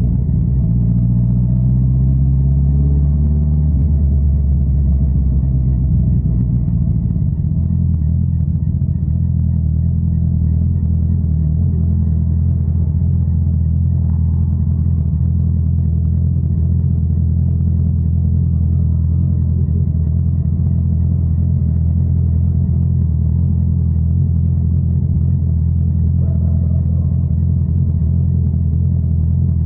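Honda CBR650R's inline-four engine running through an Akrapovič exhaust, rising in pitch over the first three or four seconds as the bike accelerates, then holding a steady note at constant speed.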